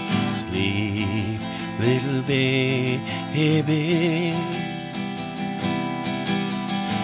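Slow acoustic guitar strummed under a man's voice holding a soft, wavering lullaby melody.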